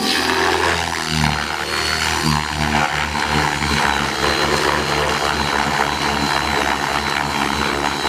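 Align T-Rex 600E electric RC helicopter in flight: rapid beating of the main rotor blades over a steady high whine from the motor and gears.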